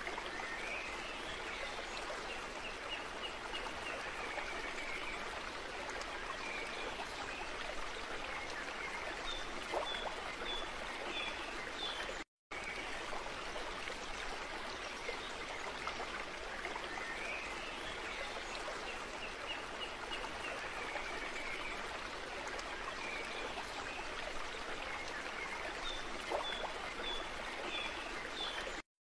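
Steady running stream with a few high bird chirps, a looped ambience track that repeats about every sixteen seconds. It cuts out for an instant at each loop point, once about twelve seconds in and again near the end.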